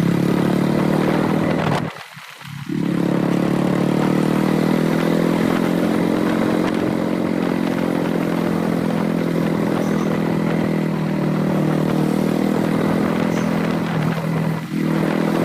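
Royal Enfield motorcycle engine running steadily while being ridden along the road, with a brief drop in sound about two seconds in.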